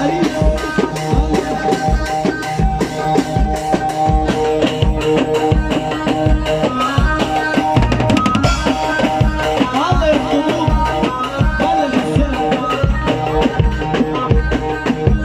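Instrumental break of an Egyptian shaabi song: a drum kit plays a fast, driving beat with bass drum, snare and rimshots under a sustained keyboard melody, with a quick drum roll about eight seconds in.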